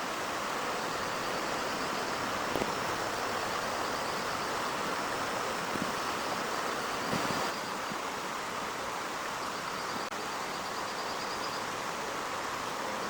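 Heavy rain falling steadily, a dense even hiss, with a couple of sharp ticks. A faint high pulsing trill sounds twice in the background.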